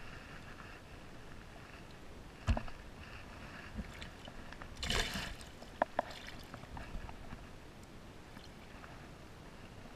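River water lapping and sloshing against shoreline rocks, with scattered small clicks, a sharp knock about two and a half seconds in and a short, louder rush of noise around the middle.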